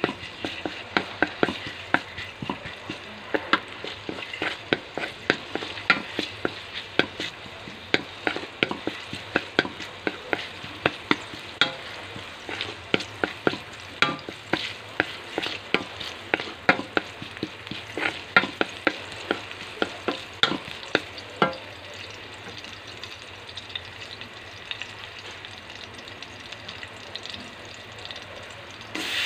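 Minced garlic sizzling in oil in a metal wok as it is stirred with a wooden spatula. Frequent sharp clicks and pops ride over the sizzle for about the first two-thirds, then it settles to a steady sizzle.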